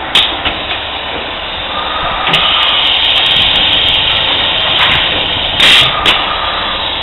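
Roller forming machine running a cycle: a click as it starts, then a steady mechanical whine as the roller head travels along its linear guide rail, with a loud short burst about five and a half seconds in.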